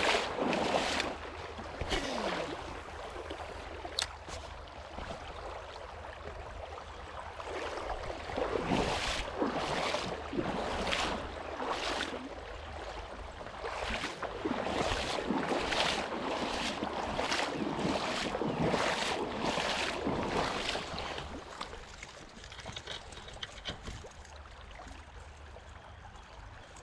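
River water flowing, with irregular splashes about once a second through the middle stretch that die away near the end.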